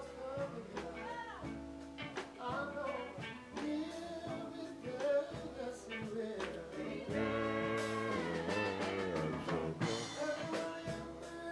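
Live gospel music from a church band, with drums and a voice singing the melody over the instruments.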